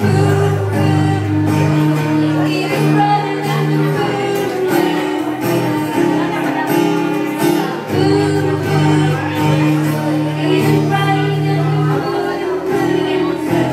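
Music with a steady beat and a bass line, with some singing.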